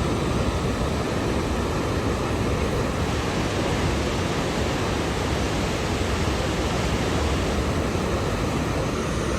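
Waterfall: falling water making a steady, even rush of noise, heaviest in the low end, with no breaks or changes.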